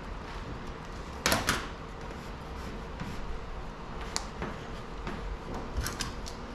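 A short, loud knock or clatter a little over a second in, then a few light clicks, over a steady background hum.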